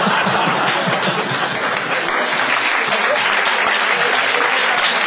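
Audience applauding loudly and steadily.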